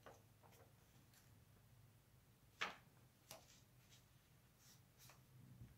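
Near silence with a few faint taps and rustles of paper sheets being laid onto a folded card and squared up on a table; the sharpest tap comes about two and a half seconds in.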